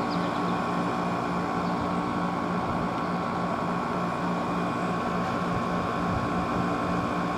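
Fedders-built Everstar window air conditioner running: a steady hum with airflow noise. It runs quietly, with no rattle or shaking.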